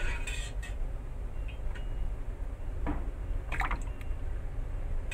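Yard-long beans being stirred in a bowl of cold water: a few short splashes and drips near the start and again about three seconds in, over a low steady hum.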